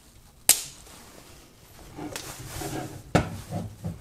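Two sharp metallic clicks about two and a half seconds apart from an AR-15 being put back together. The upper receiver is closed down onto the lower and the rear takedown pin is pushed back in. Faint handling noise falls between the clicks.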